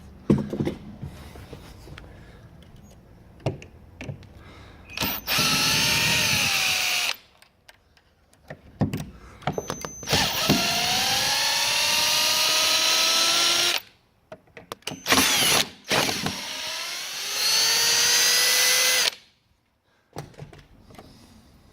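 Power drill-driver running in three bursts of two to four seconds each, working screws on a door lock fitting, its motor pitch shifting during each run. Handling clicks and knocks fall between the runs.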